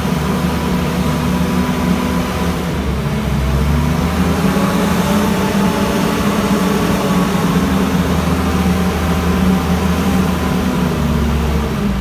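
Telehandler engine running steadily, a loud, low, even drone, as the machine moves snow with its front bucket.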